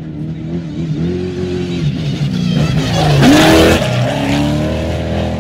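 Off-road race car accelerating past at close range. The engine revs up and down, climbs in pitch and peaks in loudness about three seconds in with a rush of noise as it goes by, then carries on at a steady high pitch.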